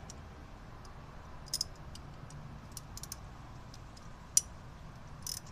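Scattered light metallic clicks and ticks from a spark plug socket and wrench being worked as a spark plug is threaded into the engine, with one sharper click a little past four seconds in. A faint low hum runs underneath.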